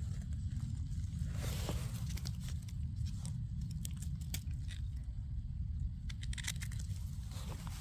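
Irregular crunching and crackling in forest-floor litter while mushrooms are being picked, over a steady low rumble on the microphone.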